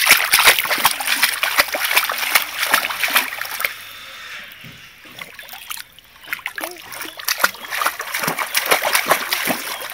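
Swimming-pool water splashing and sloshing as a baby is pushed through it, paddling with his hands. The splashing comes in two spells: a busy one over the first few seconds, a quieter lull around the middle, then more splashing until near the end.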